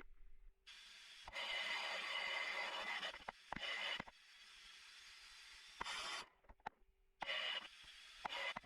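Sandblaster gun blasting abrasive against a brass hammer in hissing bursts: a long blast of about two seconds, then several shorter ones, with a fainter hiss and a few sharp clicks between.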